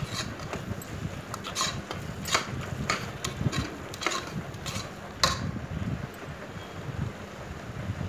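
A metal spoon scraping and knocking against the inside of a pressure cooker while stirring a thick masala paste, a stroke about every half second, stopping about five seconds in.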